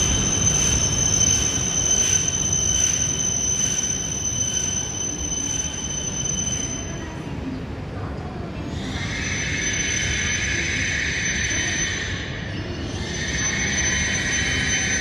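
JR East E5 series Shinkansen pulling out of the station: running noise with a steady high whine that fades out about halfway through. After that, a hissing squeal swells and dies away twice.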